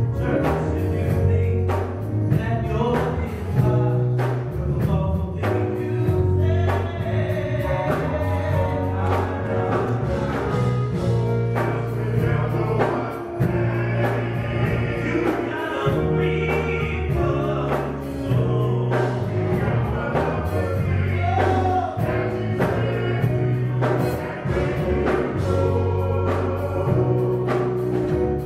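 Men's gospel vocal group singing in harmony, backed by keyboard and drums with a steady beat.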